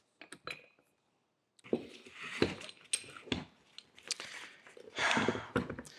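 A few sharp taps at the start, then the nylon webbing strap of a boat winch rustling and scraping as it is handled and pulled back over the winch drum, with small metal clicks from the winch.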